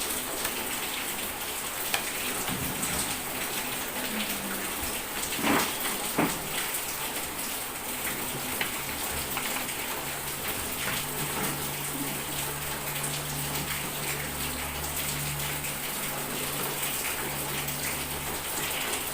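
Steady rain hissing and pattering on surfaces, with two short knocks about five and six seconds in. A low steady hum joins about halfway through.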